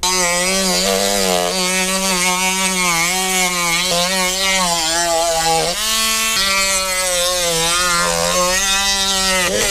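Dremel rotary tool with a sanding drum running at speed while sanding out the gauge holes of an A-pillar gauge pod. Its steady whine wavers in pitch as the bit bears on the edge, and briefly rises in pitch near the middle when the load eases.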